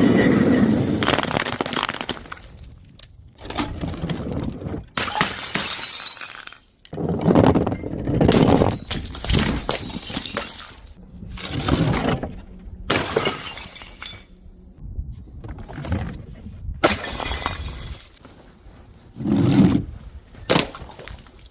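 Glass bottles breaking and shattering, one crash after another, several times with short quieter gaps between.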